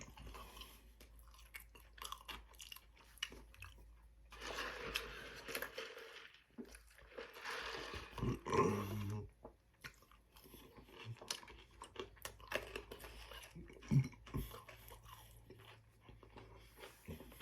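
A man chewing and crunching food close to the microphone, with many small wet mouth clicks. A couple of longer breathy noises come partway through.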